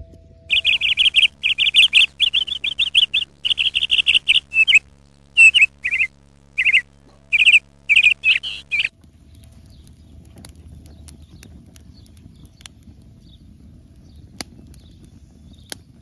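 A songbird singing close by: loud, rapid, high trilled phrases repeated over about eight seconds, which stop abruptly. A quieter outdoor background with a few faint sharp clicks follows.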